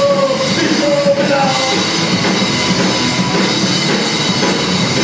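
Live rock band playing loudly, with electric guitars over a drum kit.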